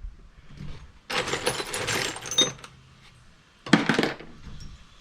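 Loose metal bolts and nuts clattering as a hand rummages through a parts bin, in two bursts: a longer one about a second in and a short one near the end.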